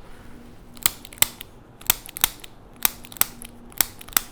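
Handheld spring-loaded chiropractic adjusting instrument firing against the neck over the suboccipital muscles and mastoid: sharp clicks in quick pairs, four pairs about a second apart.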